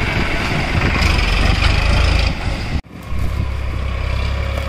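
Eicher 551 tractor's diesel engine running, a steady low hum with noise over it. It breaks off for a moment about three seconds in and comes back as a steadier, deeper hum.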